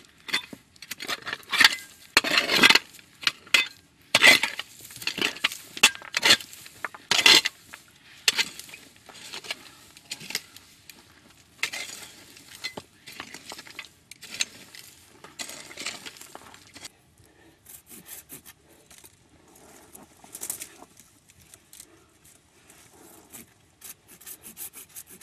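A hand digging tool striking and scraping into stony soil and rock in irregular strokes, with a clink of metal on stone. The strokes are loudest in the first half and grow sparser and fainter later.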